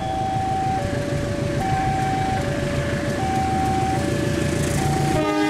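Level-crossing warning alarm sounding a two-note electronic chime, high and low notes alternating about every 0.8 seconds, over the low rumble of an approaching diesel locomotive. The locomotive's horn comes in near the end.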